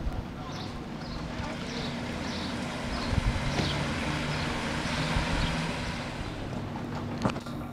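Steady rain falling onto a flooded sidewalk and puddles, with gusts of wind buffeting the microphone. A faint low steady hum runs underneath.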